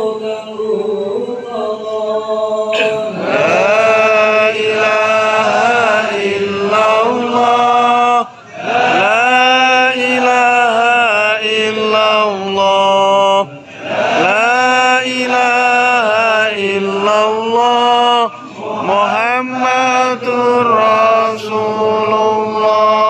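Men's voices chanting dzikir, Islamic devotional remembrance, in long melodic phrases of about five seconds each, with short breaks for breath between them.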